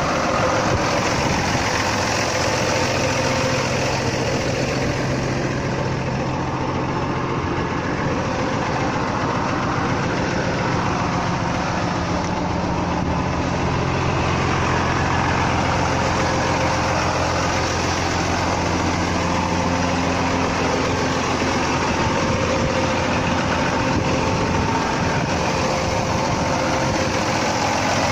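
Pauny 280A tractor's diesel engine idling steadily.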